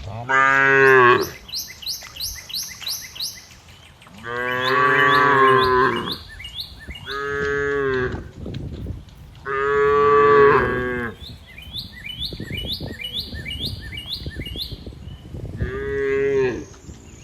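Cattle mooing: five long calls, the first about half a second in and the last near the end. Between them come rapid runs of short high chirps.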